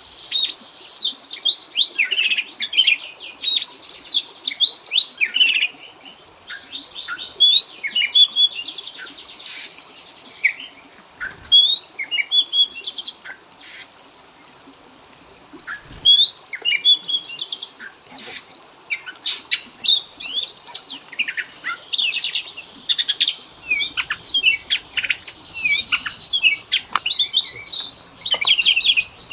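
Oriental magpie-robin singing a fast, varied song of loud whistles, chirps and trills, many sliding up or down in pitch and run together with mimicked phrases. The song breaks off for a couple of seconds about halfway, then resumes just as busily.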